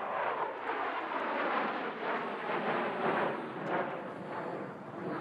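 Jet noise from four F-16 Fighting Falcons of the Thunderbirds flying in diamond formation as they pull up into a vertical climb: a rough, uneven roar that swells and fades slightly.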